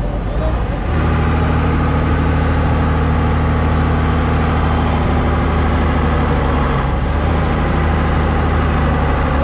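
Heavy diesel engine of a Stalowa Wola Sokół wheel loader running hard under load as the loader pulls on a steel tow cable to drag out a lorry stuck in the mud. The engine note steps up about a second in and then holds steady.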